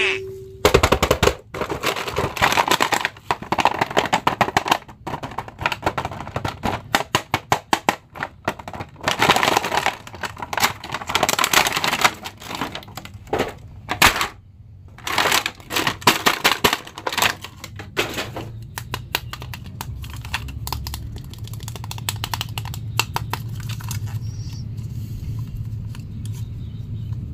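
Cardboard box and clear plastic packaging of an action figure being handled and opened, crinkling and crackling in quick runs of clicks. After about two-thirds of the way through it turns sparser, with a few light clicks over a low steady hum as the freed plastic figure is handled.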